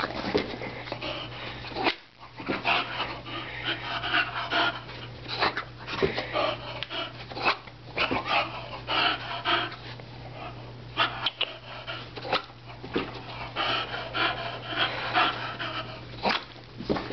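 English bulldog breathing hard while jumping and playing, with irregular knocks and thumps among the breaths.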